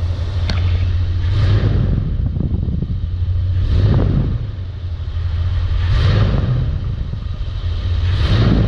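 Big-block Chevrolet V8 running, its sound swelling and easing several times as if the throttle is opened, with one sharp click about half a second in. No bottom-end ticking can be picked out: the fuel pump and its pushrod, whose wear had made a tick like a connecting-rod knock, have just been replaced.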